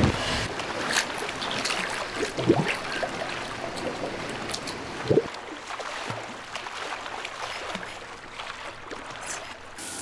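Swimming-pool water splashing from a swimmer's strokes, with a few sharper splashes in the first half, then settling to gentle lapping.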